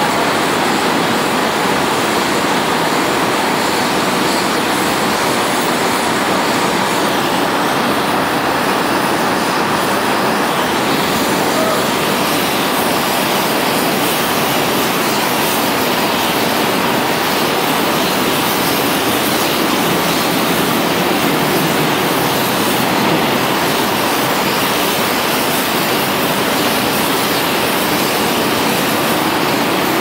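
Steady, loud rushing noise at a blast furnace tap hole, with the tap hole machine working at the hole and flame spraying out.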